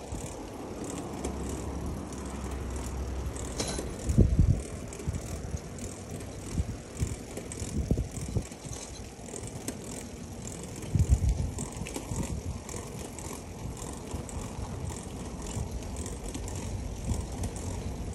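Old mountain bike rolling along tiled paving: steady tyre and road noise with light rattling and ticking from the bike and its plastic front crate, and two louder low thumps, about four and eleven seconds in.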